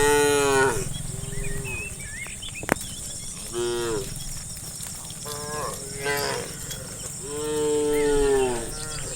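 Cattle mooing: a series of about five moos of varying length from several animals. The first call is loud and the longest comes near the end.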